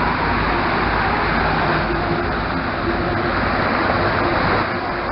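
Steady noise of a motor ship under way: engine running and water rushing past the hull, with no breaks.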